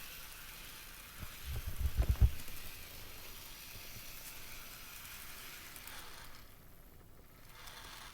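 HO scale model electric locomotive running on its track, a steady faint hiss, with a short burst of low thumping about a second and a half in. The hiss fades about six seconds in.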